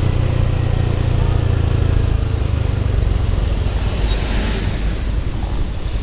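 A motor vehicle engine running close by under a steady roar of road and wind noise. The deep rumble is heavy at first and eases off about halfway through.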